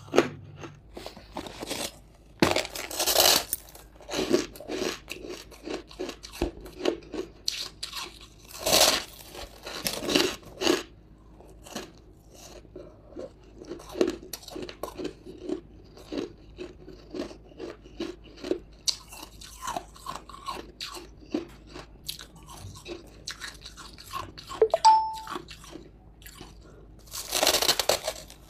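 Hard chunks of frozen ice flecked with buckwheat grains being bitten and chewed. Several loud crunching bites come a few seconds apart, with quieter crunchy chewing between them.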